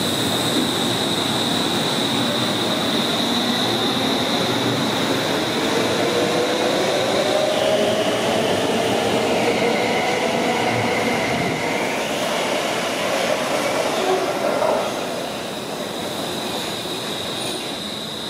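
A train running past with steady running noise and a high, steady wheel squeal that drops lower in pitch for a few seconds in the middle, then returns. Underneath, a whine rises and then falls, and the running noise eases off about fifteen seconds in.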